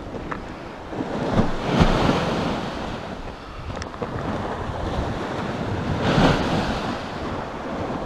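Sea waves surging and breaking against a stepped concrete sea wall, swelling louder about two seconds in and again about six seconds in, with wind buffeting the microphone.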